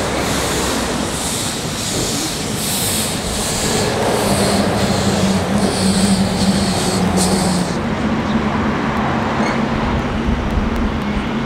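Narrow-gauge steam locomotive working, its cylinder drain cocks blowing steam in regular hissing puffs, about three every two seconds, over a low rumble. The puffs stop about two-thirds of the way through, and the rumble and a low hum carry on.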